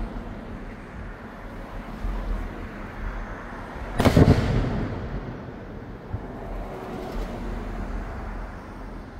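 A single aerial firework shell bursting with a loud boom about four seconds in, the report rolling on for about half a second, over steady low background noise.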